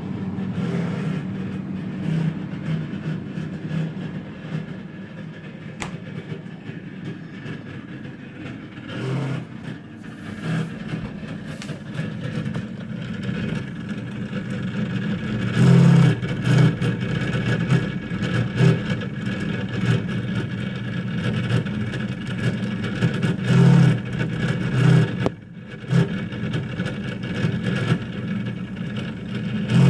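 Frigidaire refrigerator's fan running abnormally loud and blowing hard, a steady mechanical noise with louder low surges now and then.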